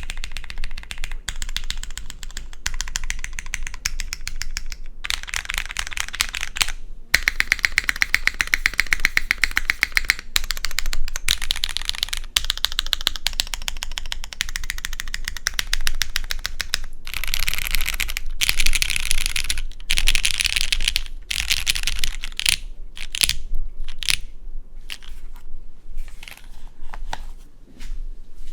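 Custom mechanical keyboard being typed on: lubed Cherry MX Black linear switches on an aluminum plate in a polycarbonate case, with GMK keycaps. Fast runs of keystrokes with short pauses between them, thinning to separate single presses near the end.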